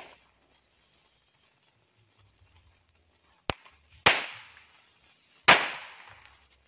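Firecrackers in a burning pile going off: one sharp crack about halfway through, then two louder bangs, each trailing off over about half a second.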